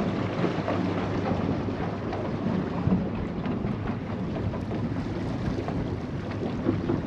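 Outboard motor of a Stabicraft 2050 aluminium boat running steadily under way, a low hum under heavy wind rumble on the microphone and the hiss of water along the hull.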